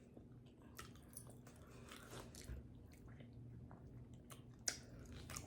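Faint close-miked eating sounds: a person chewing smothered beef neck bones, with soft wet mouth clicks and smacks and one sharper click near the end.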